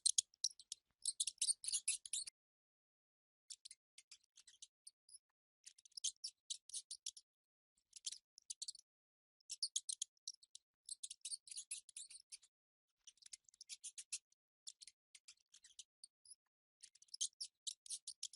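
Mice making repeated bursts of rapid, high-pitched clicking squeaks, each burst about a second long, with short silent gaps between.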